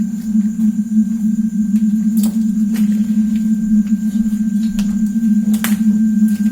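A loud, steady low hum with no change in pitch, joined by a few faint clicks, one about two seconds in and another near the end.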